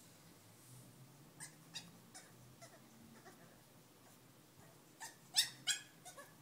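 French bulldog puppy crying at being left alone in his pen: short whining cries, faint and spaced at first, then a louder run of yelps about five seconds in, two of them much louder than the rest.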